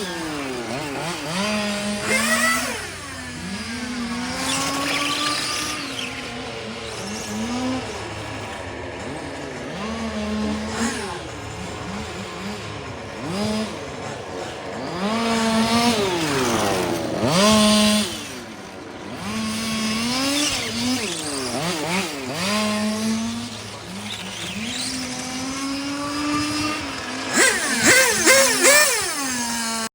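Two-stroke petrol engines of 1:5-scale RC cars revving up and down as they lap the track, the pitch rising and falling over and over. At times two engines are heard at once, one passing by.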